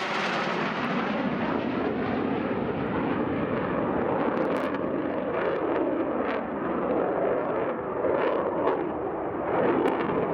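F-2 fighter's jet engine running as a steady, heavy rumble that grows duller as it draws away. From about four seconds in, a few short, sharp sounds break through.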